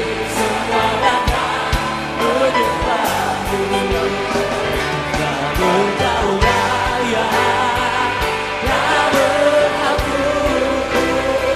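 Live Christian worship song: a male lead singer sings into a microphone over a full band, with regular drum hits and sustained backing instruments.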